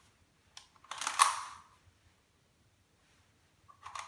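Two short scrapes of hard plastic as the spin wheel on top of a LOL Surprise Confetti Pop ball is twisted by hand, the first and louder about a second in, the second near the end, with a small click just before the first.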